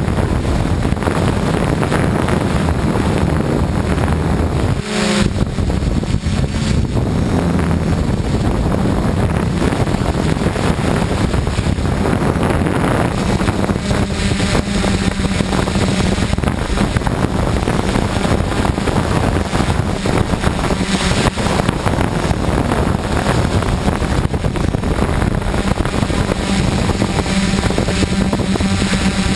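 DJI F550 hexacopter's motors and propellers droning steadily in flight, the hum shifting slightly in pitch as the motors adjust, under heavy wind buffeting on the microphone.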